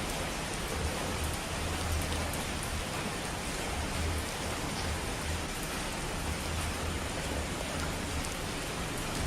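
Steady heavy rain: a dense, even hiss with faint scattered drop ticks and a low fluttering rumble underneath.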